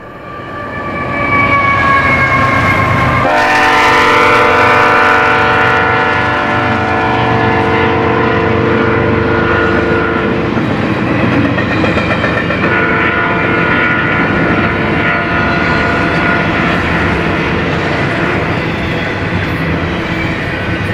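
BNSF freight train passing close, its lead locomotive's multi-note horn sounding long. The pitch drops suddenly about three seconds in as the locomotive goes by, the horn holds for several seconds, then sounds again for a few seconds after a short break. Under it, the steady rumble of the locomotives and wheels rolling on the rails.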